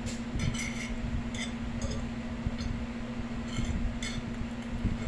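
Light clinks and clicks of eating with cutlery on a dish, a few scattered taps over a steady low electrical hum.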